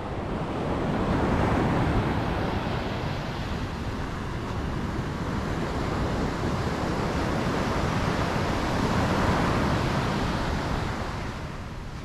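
Sea surf breaking and washing up a sandy beach, a steady rushing wash that swells twice, about a second in and again near the end.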